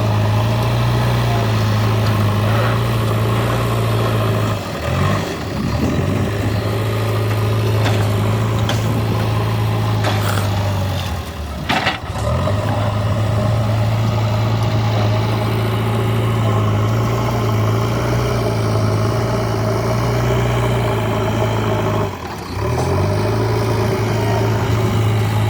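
JCB 3DX Eco Xcellence backhoe loader's diesel engine running steadily at working speed, dipping briefly in speed three times and recovering. A sharp clank comes near the middle.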